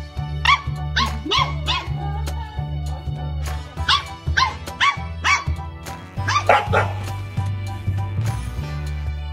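A small puppy yapping: short, high-pitched barks in quick runs of several, over background music with a steady bass line.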